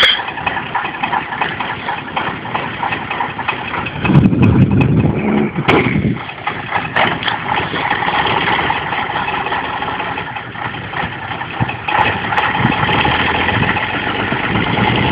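Praga V3S truck's air-cooled inline-six diesel engine running steadily at idle. About four seconds in it briefly surges louder and deeper for a couple of seconds, and a few sharp clicks come later.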